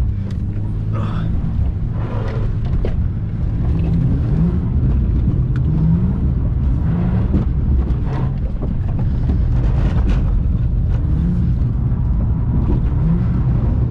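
Naturally aspirated Ford FG Falcon engine heard from inside the cabin, revving up and down repeatedly as the car is driven hard through corners on a wet skid pan.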